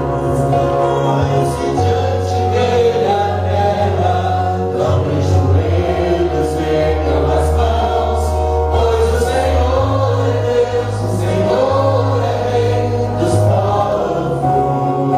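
Voices singing a worship song together over instrumental accompaniment, with sustained bass notes that shift to a new pitch every few seconds.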